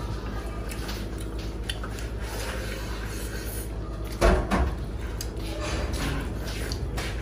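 Eating at a table: food being mixed by hand on metal plates and chewed, with small clicks and rubbing. A louder knock comes about four seconds in, followed closely by a second one.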